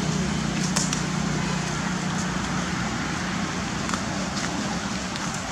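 Steady rushing outdoor background noise with a constant low hum, broken by a few light clicks or crackles.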